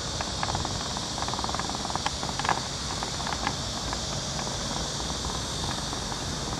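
Outdoor ambience: a steady high-pitched insect drone over a low rumble, with scattered light clicks.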